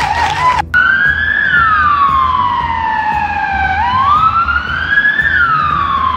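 Emergency-vehicle siren in a slow wail, its pitch sweeping up and down on a cycle of about four seconds over a low rumble. Before it, a short bouncy musical jingle cuts off abruptly less than a second in.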